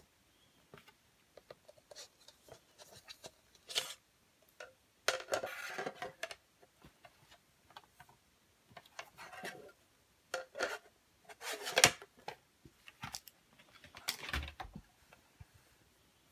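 A laptop stand and its cardboard box being handled: bursts of scraping and rubbing against the cardboard, with scattered clicks and knocks as the stand is lifted out and set up, the sharpest knock about twelve seconds in.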